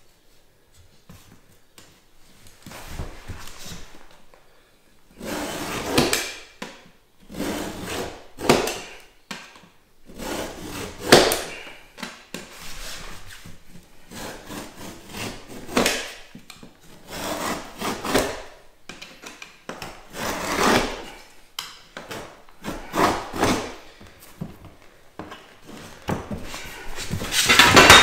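Snap-off utility knife with a carbide blade scoring hardboard along an aluminium straight edge: about a dozen short scraping strokes a second or two apart, each pass deepening the groove. A louder, longer handling noise comes near the end.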